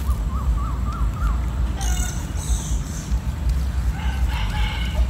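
Steady wind rumble on the microphone, with birds calling over it: a short run of quick warbling notes at the start, then two harsh, crow-like calls about two seconds in.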